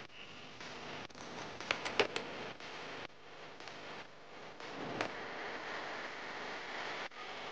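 Hand tools and dirt-bike parts being handled: a few sharp metallic clicks and knocks about two seconds in and again around five seconds, over faint rustling, as the radiators are unbolted and lifted off.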